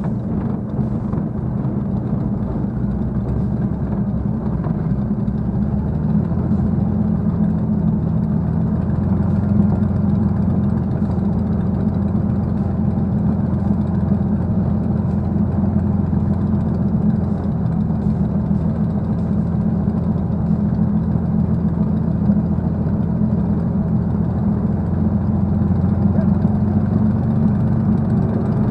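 A Spitfire's V12 piston engine running at low power while taxiing, a steady deep drone heard from inside the cockpit, growing slightly stronger about six seconds in.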